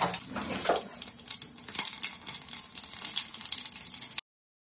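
Whole spices (cumin seeds, bay leaves, cardamom, a dry red chilli) sizzling in hot oil in a stainless steel pot, a steady hiss with many small crackles: the tempering that starts the curry. The sound cuts off suddenly near the end.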